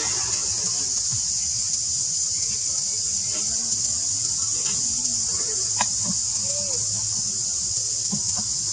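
Steady high-pitched drone of insects, with a single sharp click about six seconds in.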